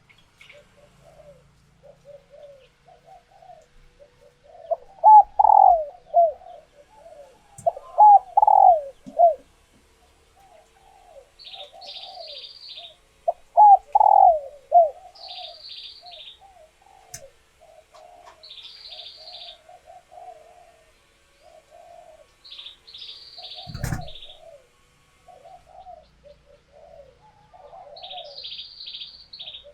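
A female spotted dove in laying condition cooing: a run of soft gliding coos, with three louder phrases in the first half. A smaller bird chirps in short bursts of about four notes every few seconds, and there is one sharp click about two-thirds of the way through.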